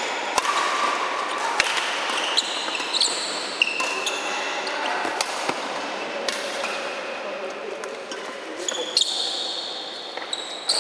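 Badminton rally: rackets striking a shuttlecock with sharp pops, and players' shoes squeaking briefly on the court many times.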